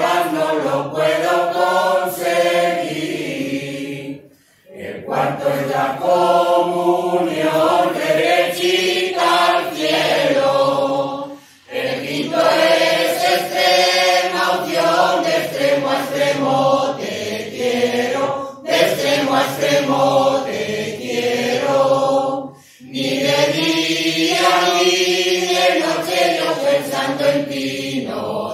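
Mixed choir of men's and women's voices singing a song together in long phrases, with brief pauses for breath between them.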